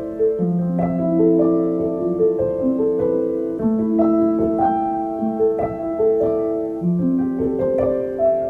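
Background piano music: a slow melody of held notes, each ringing on for about half a second to a second and a half.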